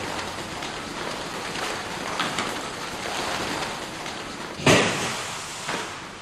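Footsteps of several people walking quickly along a hard hospital corridor floor over a steady hiss. About three-quarters of the way through comes a sudden loud rush of noise that fades over about half a second.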